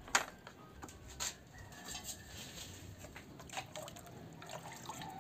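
Water splashing and dripping in a plastic bucket as a small metal pot is dipped in to scoop it up, with a few short sharp splashes or knocks.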